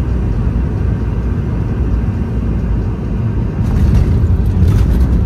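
Boeing 717 cabin noise during landing: a steady low rumble that grows louder about three and a half seconds in, with a short spell of rattling, as the jet touches down hard and rolls out on the runway.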